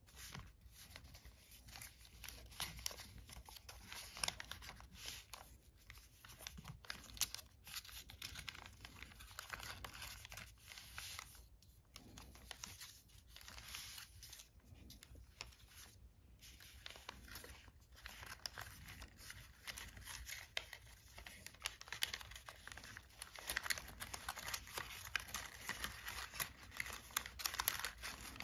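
Origami paper rustling and crinkling in short, irregular crackles as hands fold and tuck the units of a modular paper star together, a little busier near the end.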